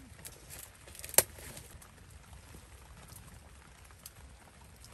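Faint steady hiss with one sharp click about a second in and a much fainter tick near the end.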